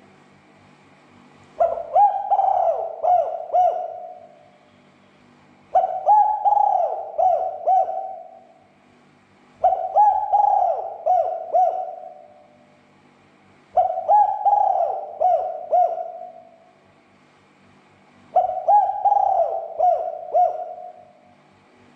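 Spotted dove (tekukur) cooing: five phrases of several coo notes each, repeated about every four seconds.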